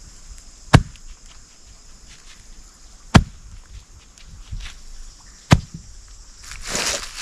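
Wood being chopped with an axe or hatchet: three sharp strikes about two and a half seconds apart, followed near the end by a brief rustling crunch.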